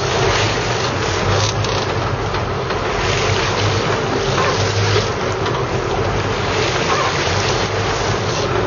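Sportfishing boat's engine running steadily under the rush of water along the hull and gusts of wind on the microphone.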